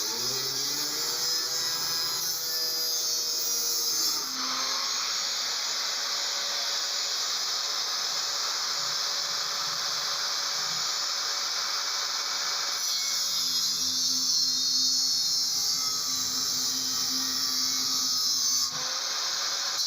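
Small electric motor running steadily with a high whine and hiss, its tone shifting abruptly a few times.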